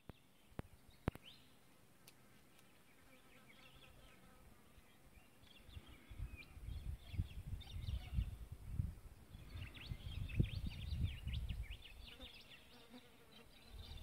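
Wind gusting over the phone's microphone, starting about six seconds in, with birds chirping and a fly buzzing close to the phone. A couple of light handling clicks come right at the start.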